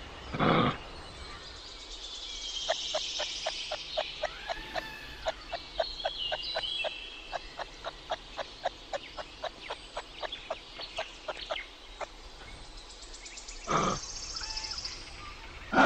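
Birdsong: high whistled phrases over a long, even series of short clicking calls at about three to four a second, with a short louder call just after the start and another near the end.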